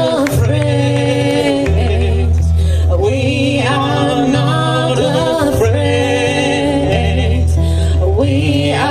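Live acoustic song: a man and a woman singing together over strummed acoustic guitar, with low bass notes that change every second or so.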